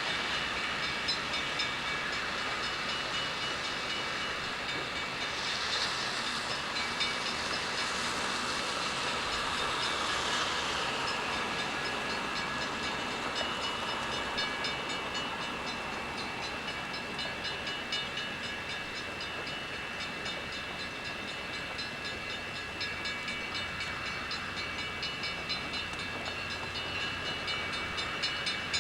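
A train running by on the tracks, a steady noise with a hiss over it throughout.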